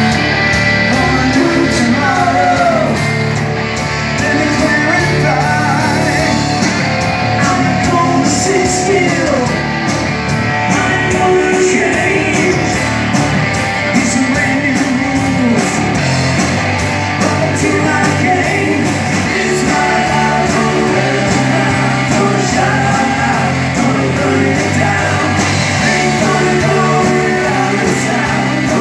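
Live rock band playing a song: two electric guitars, electric bass and a drum kit with steady cymbals, with a vocalist singing over them.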